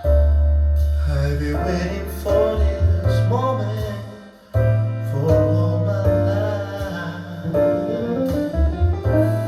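Background music: an instrumental passage with sustained bass notes and keyboard. It dips briefly about four seconds in, then carries on.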